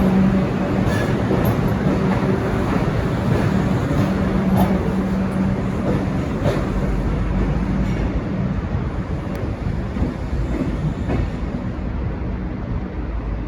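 A diesel-hauled V/Line passenger train pulling out, its carriages rolling over the rails with occasional clacks and a steady low drone underneath. The sound slowly fades as the train draws away.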